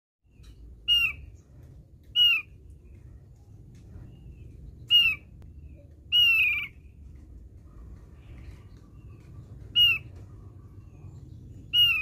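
Javan grey-throated white-eye (opior jawa) giving six short, sharp calls, each dropping slightly in pitch, spaced one to four seconds apart. The fourth call, about six seconds in, is longer and buzzier than the rest.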